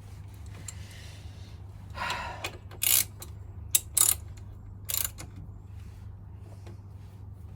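Hand tools working on a motorcycle's front wheel assembly: about five short, sharp metallic clicks and rattles between two and five seconds in, over a steady low hum.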